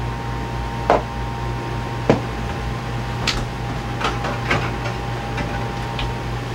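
Kitchen handling sounds: a few short knocks and clicks, the first about a second in and another about two seconds in, as a hot metal muffin tin is set down and the oven is handled, over a steady hum.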